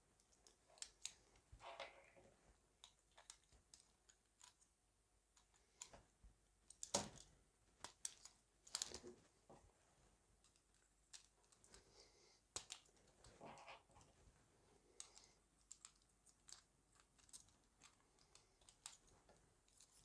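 Faint, scattered small plastic clicks and taps as key plungers are pushed one by one into the black plastic key frame of a Luxor ABC80 keyboard, a few clicks louder than the rest.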